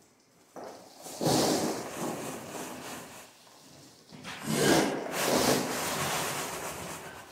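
Loose earth mix for a rammed-earth floor pouring out of a tipped wheelbarrow and landing in a heap on the floor. It comes as a gritty rushing slide in two surges: one about a second in, and a longer, louder one about four seconds in.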